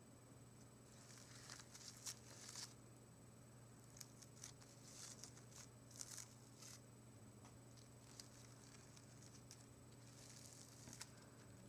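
Fingertips brushing and tapping the petals of a bouquet of carnations and roses: faint, soft rustling and crinkling in scattered brief touches.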